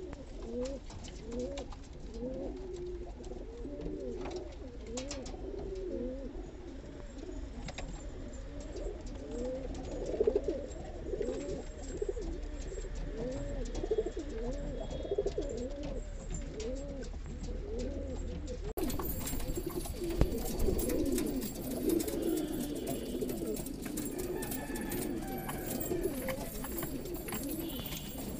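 Several domestic roller pigeons cooing continuously, their calls overlapping, with an occasional sharp knock.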